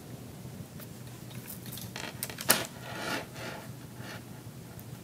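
Light clicks and scrapes of a small chain being pulled through a statue's hand, a handful of short clinks with the loudest about two and a half seconds in.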